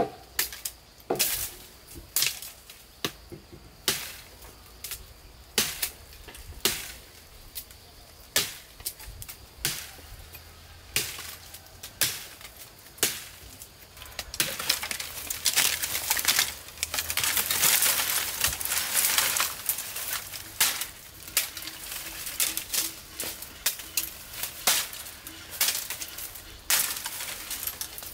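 Hand tools working wood: sharp single strikes on timber about once a second, then from about halfway a steady scraping, rasping noise with strikes still mixed in.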